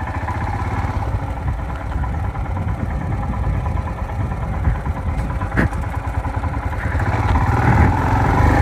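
Motorcycle engine running while riding, a rapid low pulsing that grows gradually louder toward the end as the bike picks up speed, with one brief click about halfway through.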